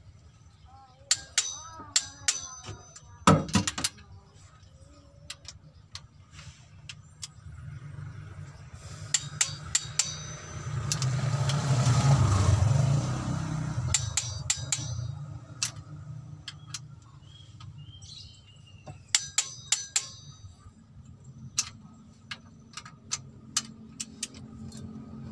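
A torque wrench ratcheting in short bursts of clicks as the cylinder head bolts of a Mitsubishi L300 diesel engine are tightened down, with a sharp metal knock a few seconds in. Midway, the low rumble of a passing vehicle swells and fades.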